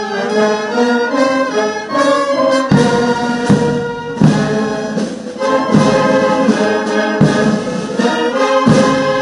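Ceremonial military brass band playing a slow piece of held brass chords, with heavy drum beats joining in about two and a half seconds in.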